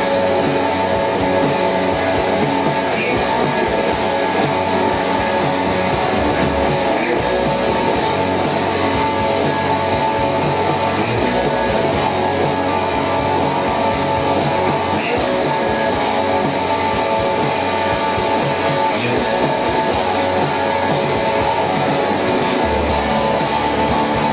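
Electric guitar played continuously through a recording take, with steady sustained chords and notes.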